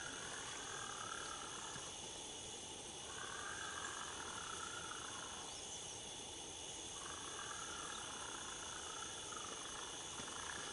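Night chorus of insects and frogs: a steady high-pitched insect drone with a rhythmic frog chorus beneath it that breaks off twice for about a second.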